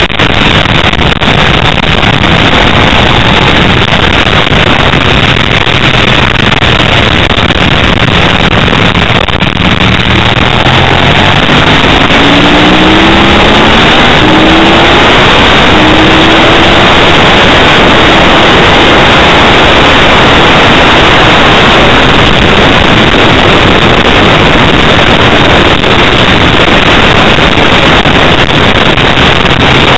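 Onboard recording of a Ducati 888's V-twin racing engine at speed, largely buried under loud, overdriven wind rush on the microphone. About halfway through, the engine note climbs in a few short rising steps as the bike accelerates through the gears.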